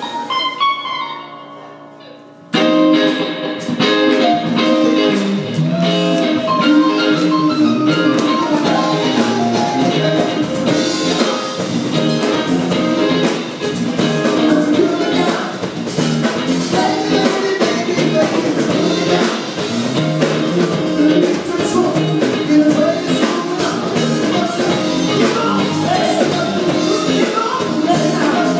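Live band music: a held chord dies away, then about two and a half seconds in the full band cuts in abruptly, playing a song with electric guitar and vocals.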